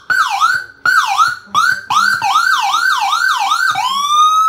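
Electronic siren from a Whelen siren amplifier under test, playing a fast yelp that sweeps up and down about four times a second and is cut off and restarted several times. Near the end it switches to a single slow rising wail.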